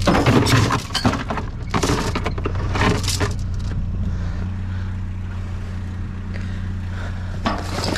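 A vehicle engine idling steadily with a low drone, while loose metal junk clatters and knocks as it is rummaged through, mostly in the first few seconds and again near the end.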